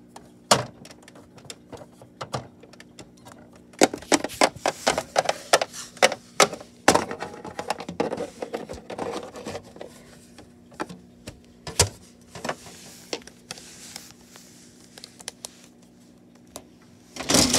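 Littlest Pet Shop plastic figure and plastic dollhouse parts handled and tapped together: a run of irregular clicks and knocks, busiest in the middle, with a louder rustling clatter near the end.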